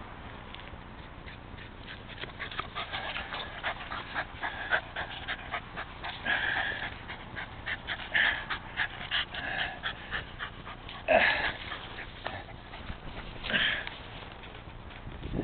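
Rat terrier panting rapidly and heavily, with a few short, louder high-pitched whines at intervals, the loudest about eleven seconds in.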